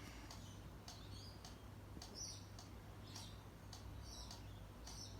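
Faint, soft high-pitched chirps and squeaks from a pet parrot, short and repeated every half second or so.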